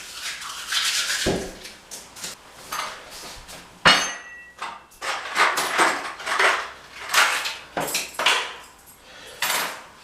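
Masking tape being peeled off a wall, with repeated scratchy tearing and rustling sounds and a sharp clink about four seconds in.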